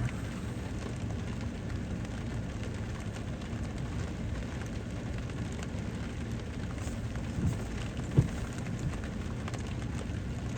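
Steady rain falling on a vehicle, heard from inside through a partly opened window, with a soft knock about seven seconds in and a sharper one about eight seconds in.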